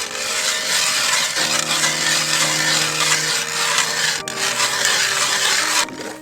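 A loud, steady, harsh scraping or grinding noise over background music, cutting off suddenly near the end.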